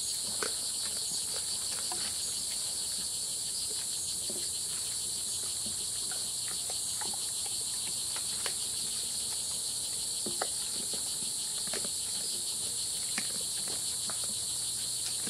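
Steady high chorus of forest insects, with scattered sharp cracks and crunches of peccaries chewing hard seeds.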